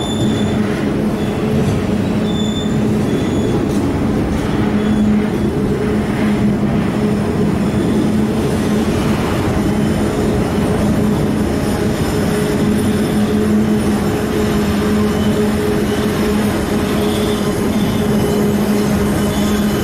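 Grain hopper wagons of a freight train rolling steadily past, a continuous rumble and clatter over a steady low hum. A few brief high wheel squeals come about half a second in, near three seconds and again near the end.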